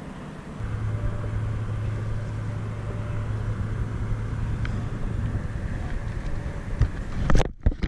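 A steady low motor hum over outdoor wind noise, starting about half a second in and fading out after about five seconds, then a few sharp knocks near the end.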